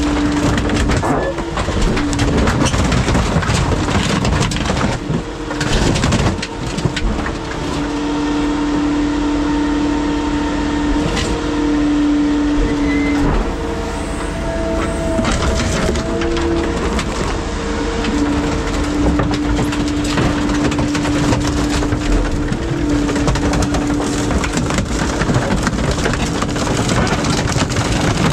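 Hydraulic machinery running with a steady whine that shifts slightly in pitch now and then, under repeated clanking and crunching of scrap metal as a grapple drops a crushed car body into the charging box of a scrap shear.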